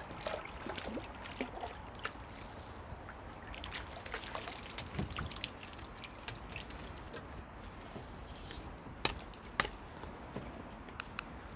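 Faint dripping and trickling of water with scattered light ticks, as a hooked crucian carp is played and lifted out of the pond. Two sharper clicks come close together near the end.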